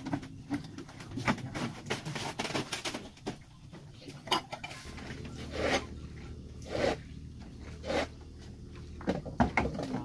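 Scattered knocks and clatter of things being handled on a bamboo raft deck: a quick run of clicks in the first three seconds, then single knocks about a second apart.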